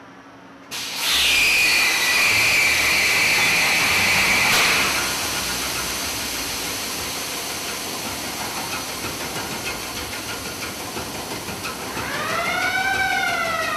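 Large two-stroke marine diesel engine: a loud hiss with a whistling tone starts suddenly about a second in and lasts about four seconds, then settles into a steady machinery noise. Near the end a whine rises and then falls.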